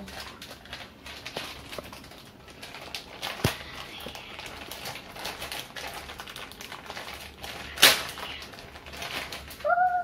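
Clear plastic packaging bag crinkling and rustling as it is opened and a silicone pop-it fidget toy is pulled out, with sharp crackles, the loudest about eight seconds in. A short high vocal sound near the end.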